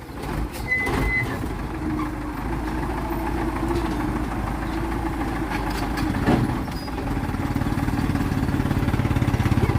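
A vehicle engine running steadily with a low throb, with a short high beep about a second in; the engine's beat grows louder near the end.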